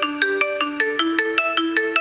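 Xiaomi Poco X3 NFC stock ringtone playing: a quick, evenly paced melody of short pitched notes, about seven a second, looping a short phrase.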